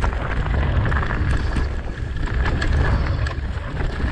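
Wind buffeting the camera microphone while a mountain bike rolls fast downhill over dirt and dry leaves, with scattered clicks and rattles from the bike.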